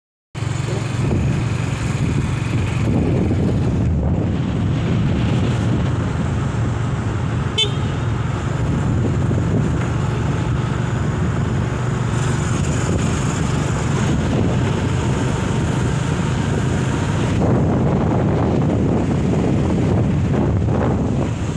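Motorcycle running steadily at road speed, its engine and the wind over the microphone making a continuous low rumble.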